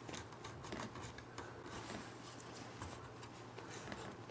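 Razor blade scraping and paring small cuts into wood in short, faint, irregular strokes.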